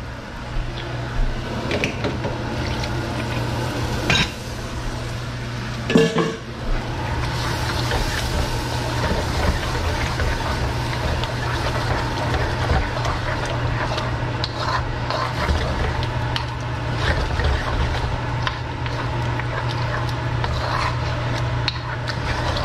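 A wooden spoon stirring and breaking up ground meat in a watery sauce in a wok: wet stirring and scraping with small knocks against the pan, the loudest about six seconds in, over a steady low hum.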